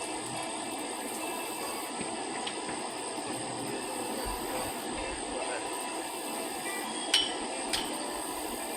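Steady outdoor background noise with no speech, broken near the end by two sharp clicks or knocks a little under a second apart.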